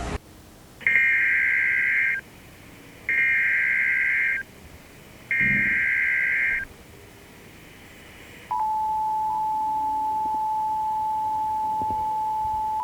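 Emergency Alert System tones: three bursts of SAME header data, a buzzy digital warble each just over a second long with short gaps between. About eight and a half seconds in, the steady two-tone EAS attention signal starts and holds.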